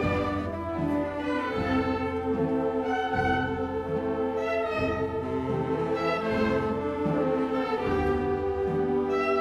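Slow ensemble music of long held notes, with the low parts moving about every second and a half.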